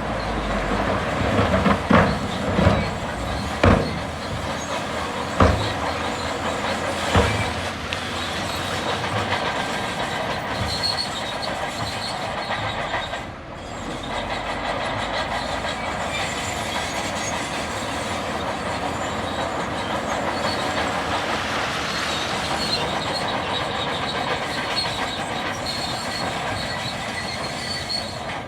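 Bulldozer working, its steel tracks clanking and squealing over a steady machine noise, with a handful of loud clanks in the first seven seconds.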